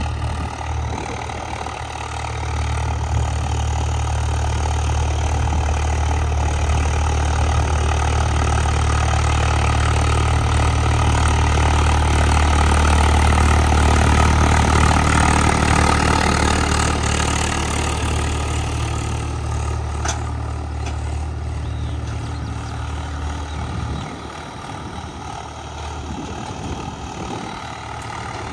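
Swaraj 744 FE tractor's three-cylinder diesel engine running steadily while pulling a disc harrow, growing louder toward the middle and then fading, with a clear drop about 24 seconds in.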